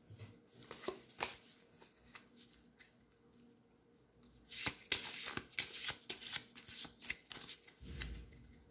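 A stack of laser-cut printed game cards riffled and flicked through the fingers. A few scattered flicks come first, then a pause, then a fast run of crisp ticks through the second half.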